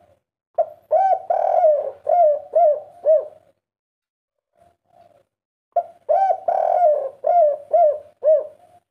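Spotted dove cooing its song twice. Each phrase is a quick run of coos ending in three separate, evenly spaced coos: the 'kuk 3' song type. Softer single coos come between the phrases.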